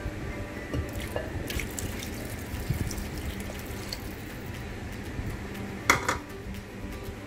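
Water poured from a bowl into a rice cooker's inner pot over rice and diced pumpkin, splashing and trickling, with a few small clicks and a sharp double knock near the end.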